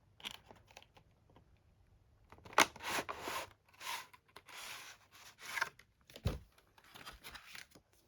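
Packaging of a Pokémon TCG collection box being torn open by hand: an irregular run of tearing and crinkling strokes, with a dull thump about six seconds in.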